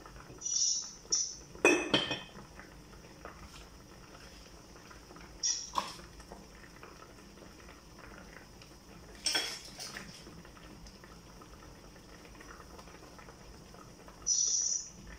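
Metal spoon clinking against stainless steel cooking pots and lids while stirring, a few separate clinks with the loudest about two seconds in, over a pot boiling on the gas burner.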